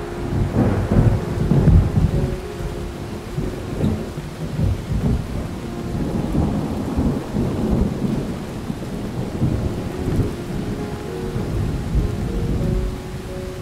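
Steady rain with low rolling thunder, overlaid with a few held musical tones: a rain-and-thunderstorm ambience track.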